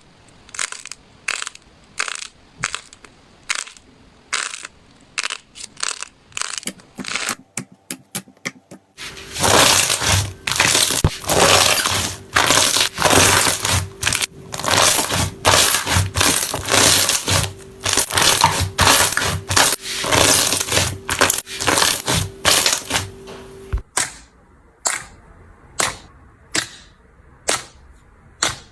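Slime being pressed and squeezed by hand, giving sharp clicky pops about twice a second. About nine seconds in, this changes to a long, dense stretch of loud crackling. Near the end, spaced single pops return.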